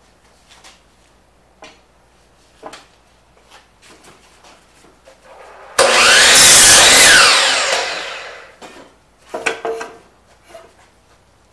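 DeWalt sliding compound miter saw starting up abruptly about six seconds in, crosscutting a 2x4 to length in one pass, then spinning down over about two seconds. A few light knocks of the board being handled come before and after the cut.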